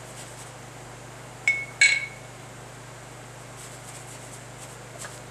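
Two light metallic clinks about half a second apart, each with a short ring: the metal-ferrule soap brush tapping against the engine block's steel seal plate while soap solution is brushed on for an air-pressure leak test.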